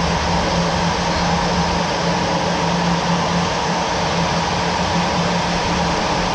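A steady mechanical drone: constant noise with an unchanging low hum and a fainter higher tone.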